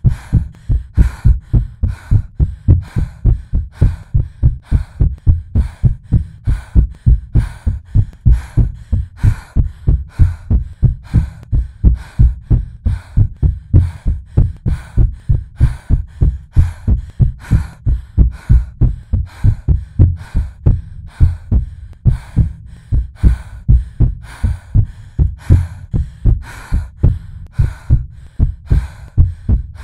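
Artificially made heartbeat sound effect: deep, evenly spaced lub-dub thuds repeating steadily.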